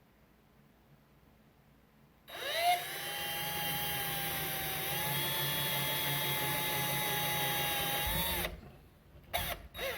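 Electric drill boring a hole into the wall: it spins up with a rising whine about two seconds in, runs steadily for about six seconds, then winds down. Two brief blips of the drill follow near the end.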